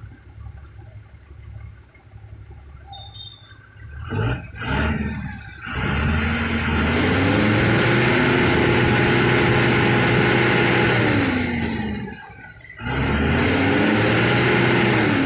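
Tata truck's diesel engine idling, then revved hard twice as the loaded tanker truck tries to drive out of deep mud. Each rev climbs, holds for several seconds and falls away, with a short drop between the two.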